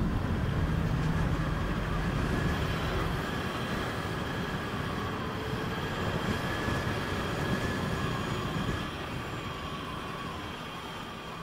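Cable trolley's wheels rolling along overhead power-line conductors: a steady metallic rumble with a faint high squeal, growing quieter toward the end.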